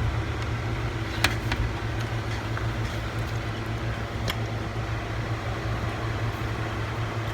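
Steady low mechanical hum, with two sharp clicks, about a second in and about four seconds in.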